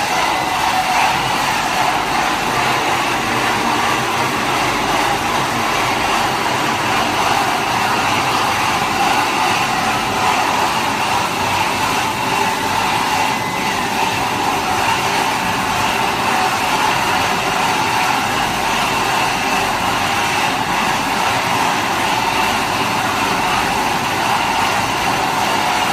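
Automatic six-head sauce filling machine running, a steady, even machine noise with no distinct strokes.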